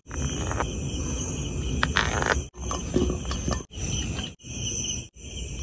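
Night insects trilling steadily over a low rumbling background, with a few sharp clicks about two seconds in; the sound drops out briefly several times.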